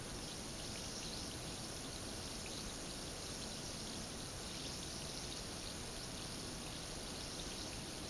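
A carbonated bath ball fizzing as it dissolves in a glass of water: a steady hiss scattered with tiny crackles of bursting bubbles.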